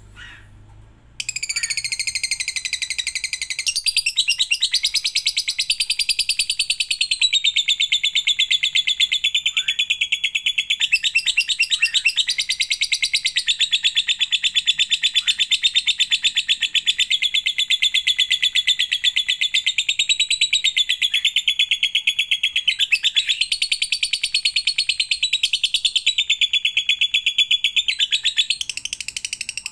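Lovebird singing one long, unbroken rapid rattling trill, the long 'ngekek' that keepers prize, starting about a second in and wavering gently up and down in pitch.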